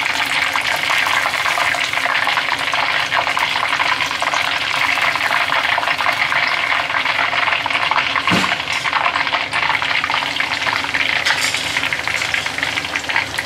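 Breaded oysters deep-frying in oil at about 170 °C in a cast-iron pot: a steady, dense crackling sizzle. A brief knock sounds about eight seconds in.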